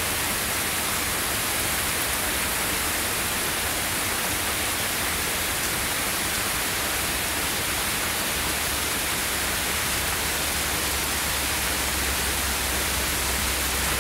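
Heavy rain pouring down in a big rainstorm, a steady, even hiss. A low steady rumble comes in underneath about eight seconds in.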